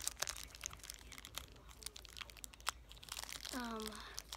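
Small plastic packaging crinkling and crackling in the hands as a toy is unwrapped, in quick irregular crackles. A brief vocal sound that falls in pitch comes near the end.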